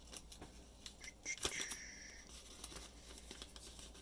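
Faint handling noises of small objects: scattered light clicks and a brief rustle of packaging as the lock's packed-up key is fetched.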